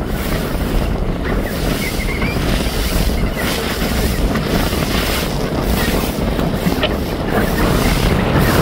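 Wind buffeting the microphone over water rushing and splashing against a sailing boat's hull as it sails through waves.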